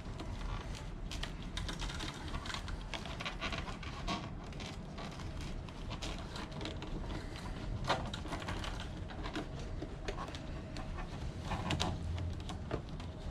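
Plastic split wire loom crackling and clicking irregularly as it is handled and wrapped onto a scooter's wire harness, over a low rumble, with a low hum coming in near the end.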